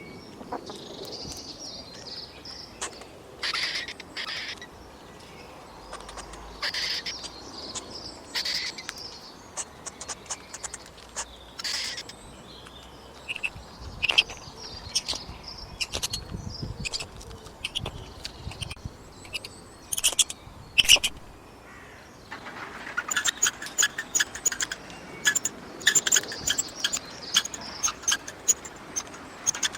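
Squirrel calls: scattered short, high chirps in small clusters, turning into a fast, continuous chattering run of chirps for the last several seconds.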